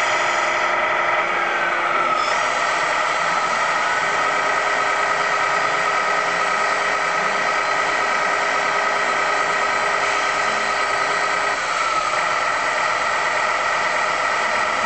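Radio-controlled scale model trucks running: a steady mechanical hum with a whine whose pitch slides briefly a few times as they drive.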